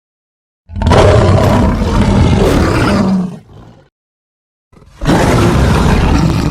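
Lion roaring: two long, loud roars, the first starting about a second in and lasting about two and a half seconds, the second starting near the end.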